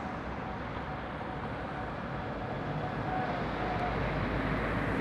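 Articulated lorry coming round a roundabout and passing close by: diesel engine and tyre noise, growing louder in the second half.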